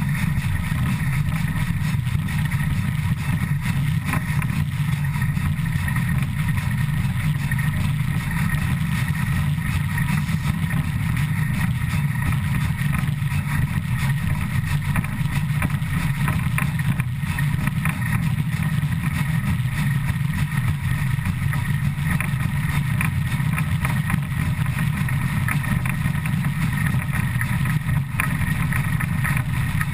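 Steam locomotive ČSD 475.179 running at about 100 km/h, heard from right beside its driving wheels and rods: a loud, steady, deep rumble of the running gear and wheels on the rail, with no separate beats standing out.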